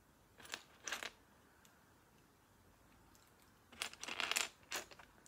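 Loose plastic Lego pieces rustling and clattering as hands rummage through them: two short bursts about half a second and a second in, then a louder, longer flurry near the end.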